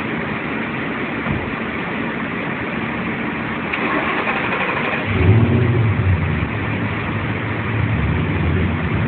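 Turbocharged Ford Mustang GT's 4.6-litre V8 running, a steady even rumble at first. About five seconds in, a deeper, louder engine note comes in and holds.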